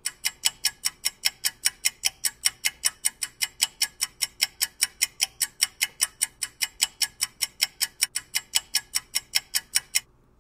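Clock-like ticking sound effect: rapid, even ticks, about five a second, starting and stopping abruptly.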